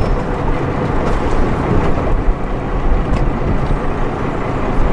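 Steady wind rumbling on the microphone aboard a small boat on open sea, a dense low noise with no distinct events.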